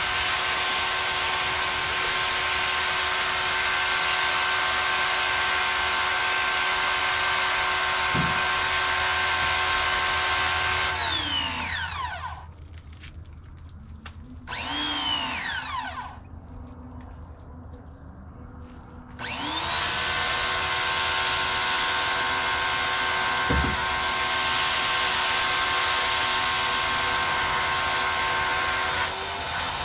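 Pressure washer feeding an undercarriage spray wand, running steadily with water spray hiss. About eleven seconds in the machine winds down and stops, starts up briefly and winds down again a few seconds later, then winds back up with a rising whine about nineteen seconds in and keeps running.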